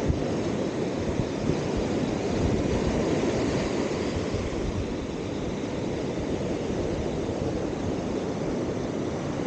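Ocean surf washing steadily onto the beach, mixed with wind rumbling on the microphone.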